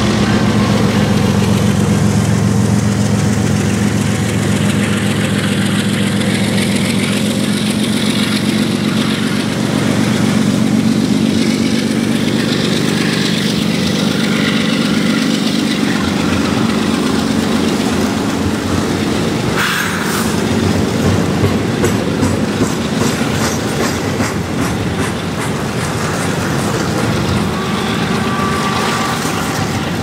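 A freight train passing close by: a CN GE ES44AC diesel locomotive's engine running strongly, then fading over the first ten seconds or so as it moves off. After that come the steel wheels of double-stack container cars, clattering rhythmically over the rails from about two-thirds of the way in.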